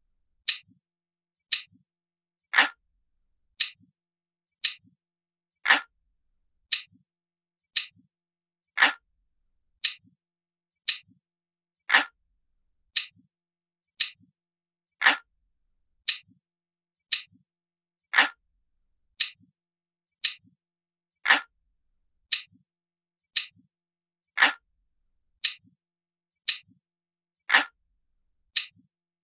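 Crisp, glass-like clock ticking, one sharp tick about every second in a steady rhythm, every third tick a little fuller.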